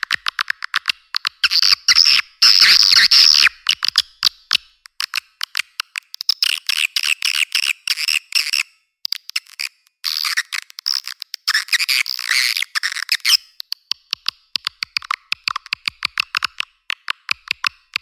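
Recorded swiftlet call track for luring swiftlets into a nesting house: rapid trains of clicks and twittering chirps, dense bursts broken by short gaps, with the bass filtered away.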